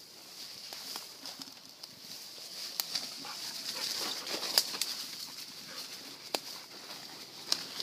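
Rustling leaves and sharp snaps of twigs and stems as a dog and a person push through dense undergrowth, the loudest snap about halfway through, over a steady high-pitched outdoor chorus of insects or birds.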